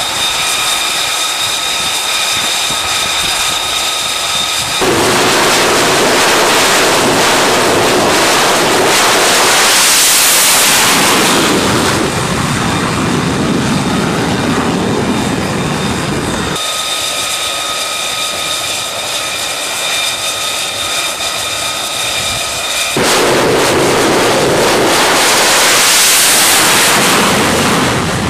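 F-35's single F135 turbofan jet engine whining at high power with several steady high tones, then a louder rushing jet roar as the fighter launches off a carrier catapult and climbs away. The whine-then-roar sequence happens twice.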